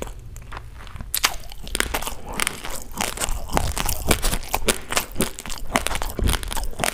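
Raw basmati rice grains crunched and chewed close to a clip-on microphone: quick, irregular dry cracks several times a second, a little sparser in the first second.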